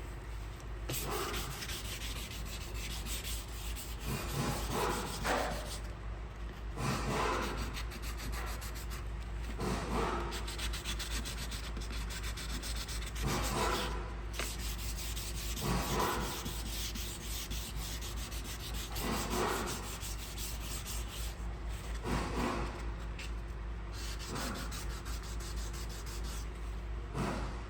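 Sanding on a car bumper, preparing scratched paint for repair: a steady rasping, rubbing noise that swells into louder strokes every two to three seconds.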